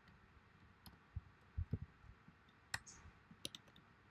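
Faint, scattered keystrokes and clicks on a computer keyboard, about eight separate taps, with a few dull low knocks about a second and a half in.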